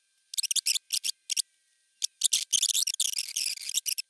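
Masking tape being peeled off its roll with a dry crackling rip: several short pulls, then a longer pull of about two seconds starting midway.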